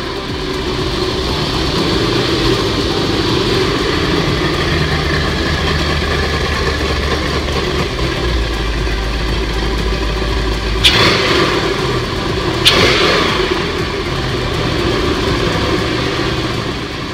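Lamborghini Murciélago V12 engine running steadily, with two short sharp sounds about eleven and twelve and a half seconds in.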